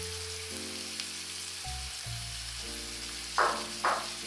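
Chopped onion and grated carrot frying in oil in a frying pan, a steady sizzle, with two brief louder bursts near the end. Soft background music plays underneath.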